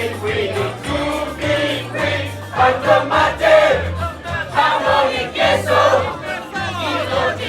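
A group of voices singing together over backing music with a steady bass line.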